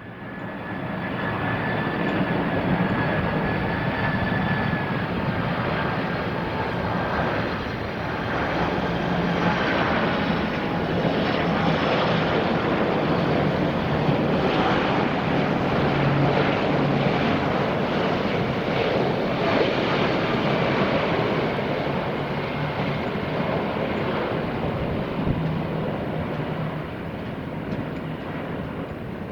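Four jet engines of a Boeing 747 on landing approach, a loud sustained roar with a high fan whine in the first several seconds.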